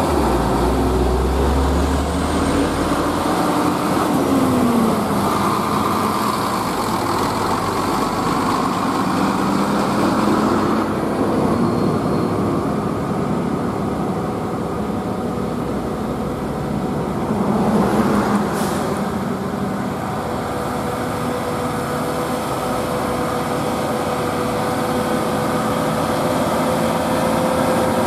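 Heavy diesel cargo trucks passing one after another, their engines running steadily. One engine's pitch falls as it goes by a few seconds in, a brief burst of noise comes about two-thirds of the way through, and a steady engine tone from an approaching truck holds near the end.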